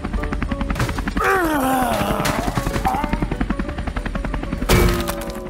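Helicopter rotor sound effect: a fast, steady chop over background music. A falling, sliding tone comes about a second in, and a loud hit near the end.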